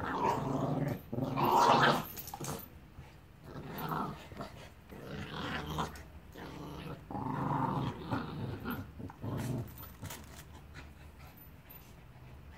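A Staffordshire Bull Terrier and a Border Terrier puppy growl at each other in play. The growls come in rough bouts of a second or two and die away about ten seconds in.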